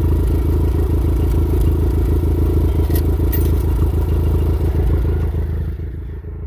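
Kubota tractor engine running steadily nearby, with a couple of sharp clicks about halfway through; the engine sound drops off somewhat near the end.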